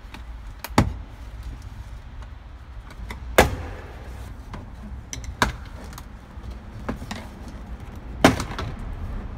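Plastic retaining clips of a 1997 Jeep Grand Cherokee's door trim panel popping loose as the panel is pried off the door: four sharp snaps a couple of seconds apart, the last the loudest, over a low steady rumble.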